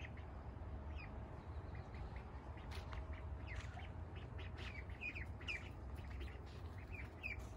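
Month-old ducklings peeping: short, high chirps, a few early and then many in quick succession through the second half.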